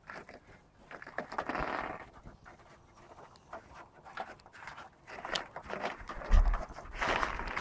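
A boxer dog panting, with a single low bump about six seconds in.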